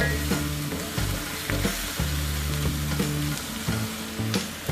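Onion and garlic sizzling in hot oil in a pan over medium heat, sautéing until the garlic turns fragrant, stirred with a few sharp clicks against the pan.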